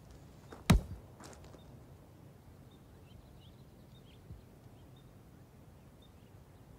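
A ball hitting a concrete wall with one sharp smack about a second in, then a fainter second knock. Faint short bird chirps repeat throughout.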